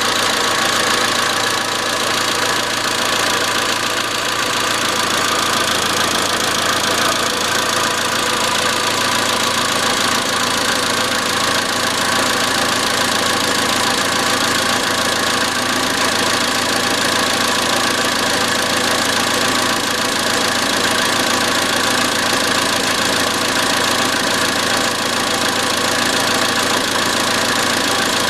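Iran Khodro Samand's 1.6-litre 16-valve TU5JP4 four-cylinder petrol engine running steadily at idle with a constant metallic knocking, an engine knock whose cause is unknown; sticking hydraulic lifters are a suspect.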